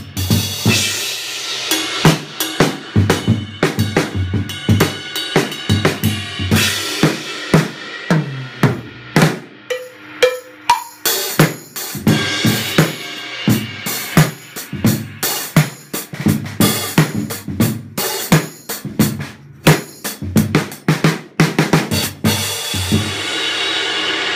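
Acoustic drum kit played solo in a busy, syncopated groove of bass drum, snare and cymbal hits. Near the end the hits stop and a long metallic ring swells up and slowly fades.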